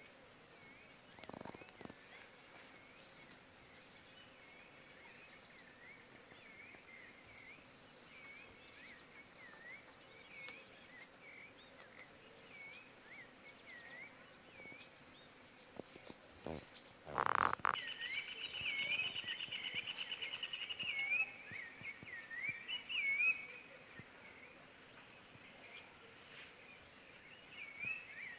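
Natural outdoor ambience: a steady high-pitched insect drone with a string of short, repeated chirping calls over it. About two-thirds of the way through, a louder call sweeps up and is followed by a fast trill and several seconds of busier chirping.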